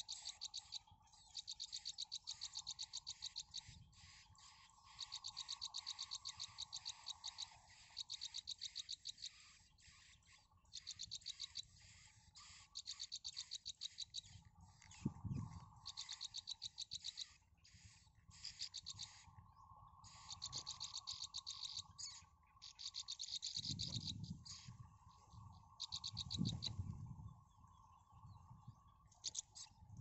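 Nestlings begging in the nest: rapid, evenly spaced high-pitched chirps in runs of one to three seconds, over a steady faint hum lower down. Dull knocks and rustling come at the nest about halfway through and again near the end, the loudest of them near the end.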